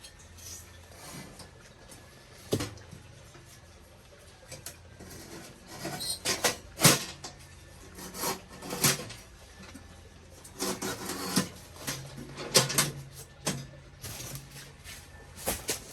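A small stainless steel wood stove being handled: a string of clanks, clicks and scrapes as it is set up with its legs folded out. The loudest knocks come about 7 and 12.5 seconds in.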